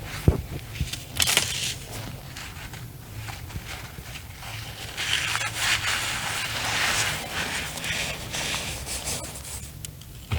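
Soft chunks of reformed cornstarch being crushed and squeezed by hand, crunching and crackling, most densely in the middle of the stretch, with a few sharp snaps near the start.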